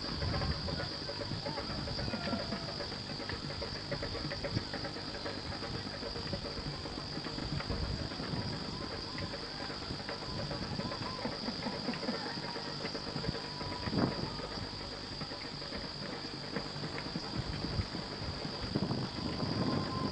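Steady high-pitched insect chorus, with faint rustling and low rumbling beneath it and a single sharp knock about two-thirds of the way through.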